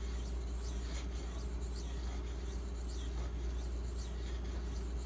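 Knife edge of Maxamet steel drawn in repeated light strokes across a 1000-grit diamond bonded waterstone, about two strokes a second, over a steady low hum.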